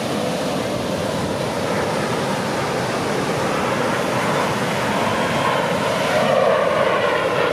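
Steady rushing noise of surf and wind, with an aircraft engine growing louder near the end.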